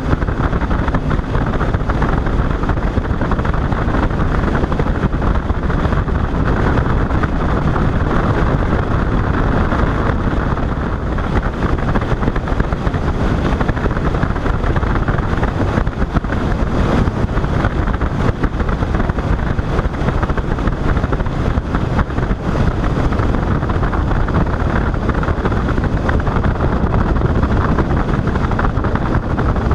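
Boat running at speed over open water: a loud, steady rush of motor, hull and wind noise with no breaks.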